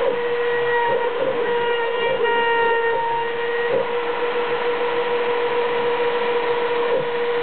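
WidgitMaster Midi CNC router's spindle running with a steady whine as its small bit carves a 3D relief into wood, with a few faint short ticks along the way.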